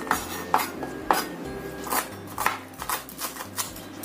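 Kitchen knife chopping spring onions on a wooden cutting board: sharp knocks of the blade on the board, about two a second and unevenly spaced.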